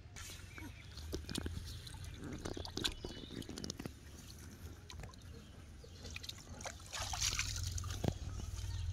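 Water sloshing and splashing in irregular bursts, with scattered clicks and knocks over a low rumble; the splashing grows louder near the end.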